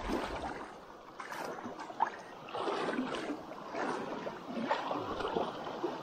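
River water sloshing, gurgling and splashing in uneven surges, as from people wading across a flowing river.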